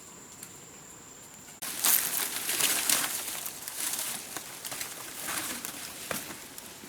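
A steady high-pitched insect tone that stops abruptly about a second and a half in. It gives way to loud, dense rustling and crackling with many sharp clicks.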